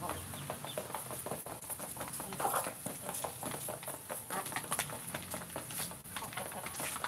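Free-range village chickens feeding, with many short taps and scratches from pecking in the dirt and a few clucks.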